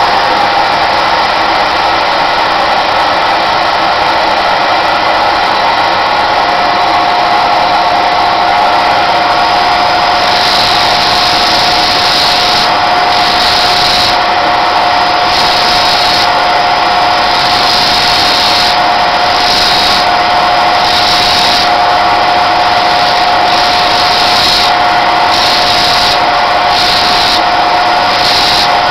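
Electric spindle motor spinning a sanding disc with a steady whine. From about ten seconds in, sperm whale jaw bone is pressed against the disc in repeated short passes, each adding a higher grinding sound as the bone is ground to shape.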